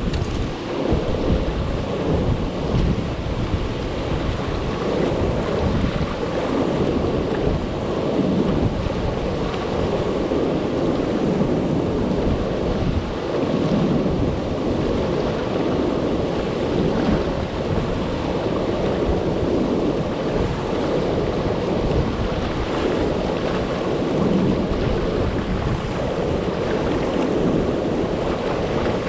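Turbulent river water churning and rushing through the rapids below a low-head dam, a steady full rush of whitewater.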